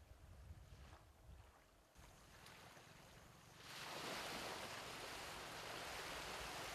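Small waves washing onto a coral-rubble beach: a steady hiss of surf that comes in a little over halfway through, after a quieter stretch with only a faint low rumble.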